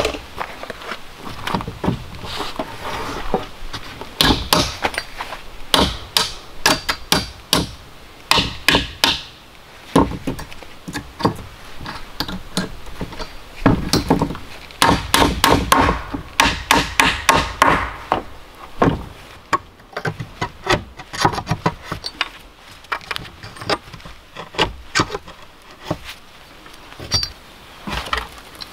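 Hammer blows on old weathered boards, coming in quick runs with pauses between, as nails are knocked and pried out of the wood with a claw hammer.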